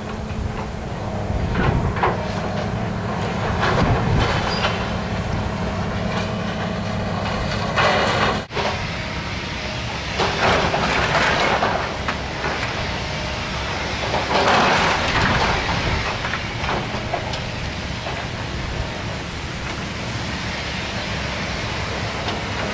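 Hydraulic excavator's diesel engine running under load, with debris crunching, clattering and crashing down as its grapple tears into the building's walls and roof. There are several louder crashes, around a third of the way in and again near two-thirds.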